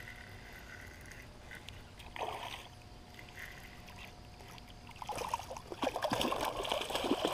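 Hooked channel catfish thrashing and splashing at the water's surface, starting about five seconds in.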